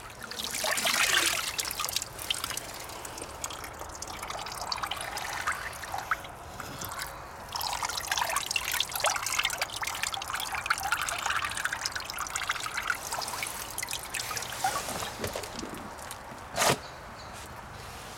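Water splashing and trickling in a busy, irregular patter, with one short, sharp, louder sound about a second and a half before the end.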